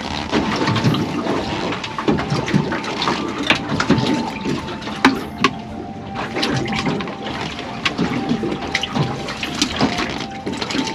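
Water sloshing and gurgling, with many scattered small clicks and knocks.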